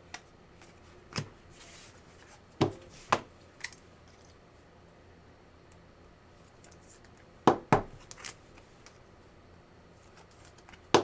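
Trading cards being handled on a table: several short taps and clicks, a group in the first few seconds and another about halfway through.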